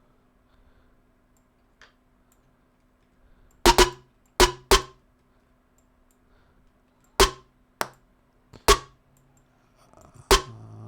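An electronic snare sample triggered one hit at a time, about eight short, sharp hits at uneven spacing, some in quick pairs, as it is auditioned while being edited.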